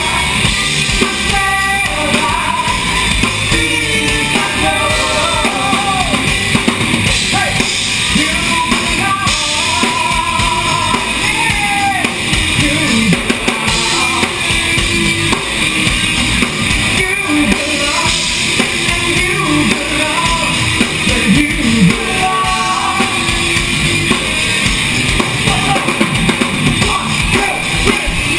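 Live band playing loud: drum kit and electric guitar.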